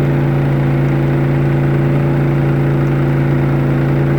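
Harbor Freight inverter generator's engine running steadily under load, carrying a travel trailer's air conditioner, with an even low hum.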